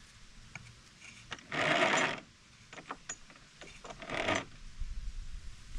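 Two short rasping scrapes about two and a half seconds apart, with a few light clicks between: the winch line and small metal parts being handled at the winch drum.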